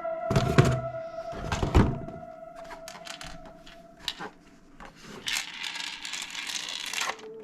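Several dull knocks in the first two seconds and scattered clicks, over a held music tone that fades out. A rustling hiss follows near the end.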